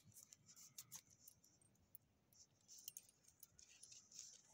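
Faint, scattered light clinking and rattling from a leashed dog walking and sniffing over gravel.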